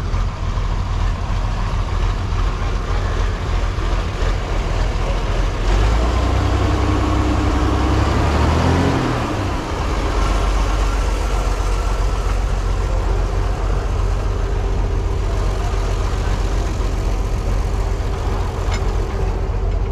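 Engine running with a steady low rumble; about six to nine seconds in, a pitched note slides downward and fades out, followed by a brief dip in level.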